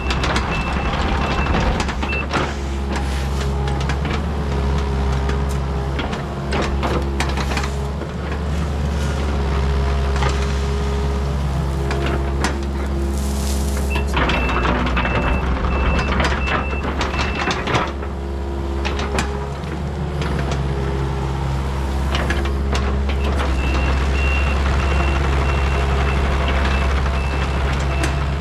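Kubota KX080-3 excavator's diesel engine running steadily under hydraulic load while the boom and arm move and the machine tracks. Its travel alarm beeps in three stretches: at the start, midway, and near the end. Scattered clanks from the tracks and bucket.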